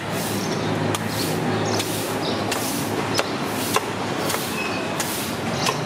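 Street-stall background noise: a steady hubbub with a low hum, broken by scattered sharp clicks and taps.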